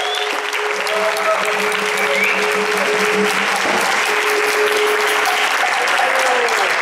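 Crowd applauding, with a few held voice-like tones over the clapping in the first half.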